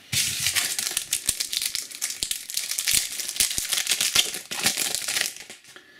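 Foil trading card pack being torn open and crinkled by hand: a dense crackling with sharp clicks that dies away about five seconds in.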